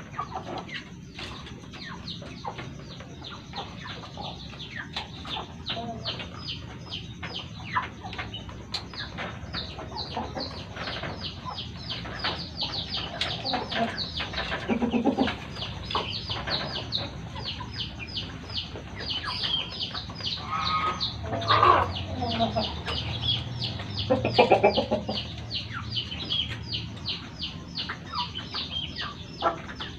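Chickens clucking and calling, a rapid stream of short high calls several a second throughout. A few louder, lower calls stand out around the middle and about two-thirds of the way through.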